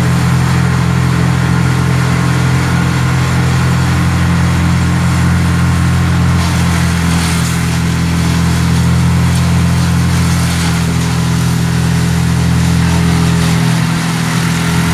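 A large engine running steadily at a constant speed, with a low, even drone.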